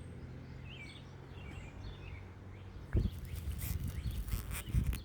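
Faint bird chirps over a steady low hum. About three seconds in comes a thump, then crackly rustling and clicking, typical of hands handling and pulling at material.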